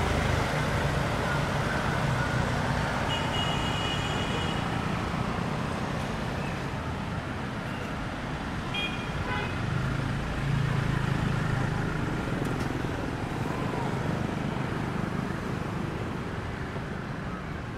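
Busy city street traffic: motor scooters and cars running past with a steady engine rumble. A vehicle horn sounds for about a second just after three seconds in, and a few short horn beeps come around nine seconds.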